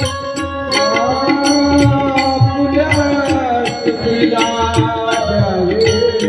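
Devotional kirtan music: a singer holds a long, wavering sung line over hand-drum beats and regular sharp cymbal strikes about twice a second.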